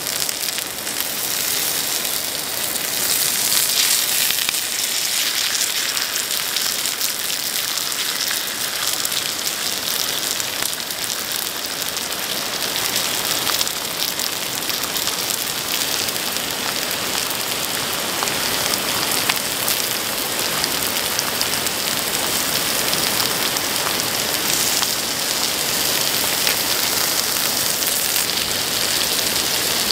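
Pork belly and enoki mushrooms sizzling on a hot griddle pan: a steady hiss of frying fat with fine crackling.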